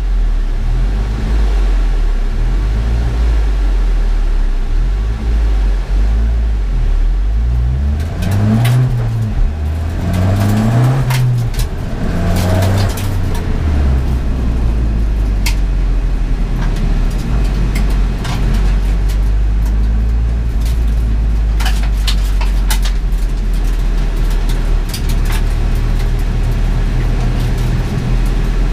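Ford Fiesta ST engine heard from inside its stripped, roll-caged cabin, pulling away with a few rising revs through the gears about a third of the way in, then running at a low, steady cruise. Sharp knocks and rattles come through the cabin now and then.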